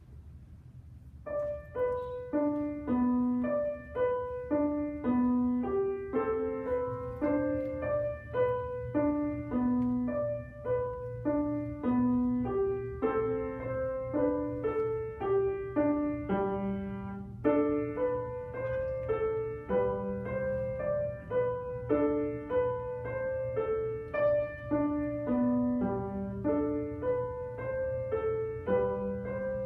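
Grand piano played solo: a short, lively piece built on a repeating melodic figure, beginning about a second in, with a low steady hum underneath.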